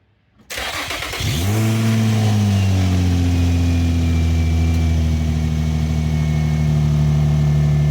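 2008 Infiniti FX35's 3.5-litre V6 starting up, with the exhaust still on the original Y pipe. The engine catches about a second in, flares up in revs, then drops back and settles into a steady idle.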